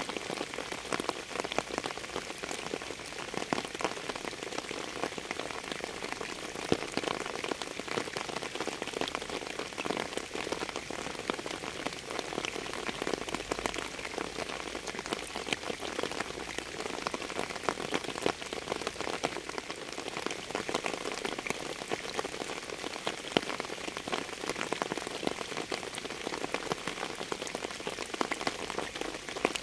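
Steady rain falling on a surface, a dense, even hiss with many distinct drop hits.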